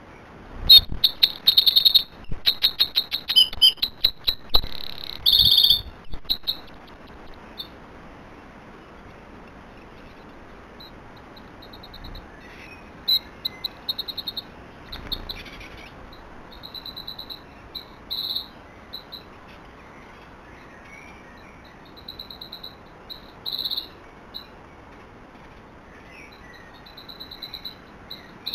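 Male Eurasian wren singing close to the nest box: long bursts of very rapid, high trills in the first six seconds, mixed with a few knocks, then shorter trilled phrases on and off through the rest.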